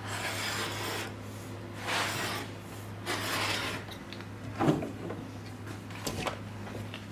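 Three slow rasping strokes of a hand tool working wood, each about a second long, then two short knocks, over a steady low hum.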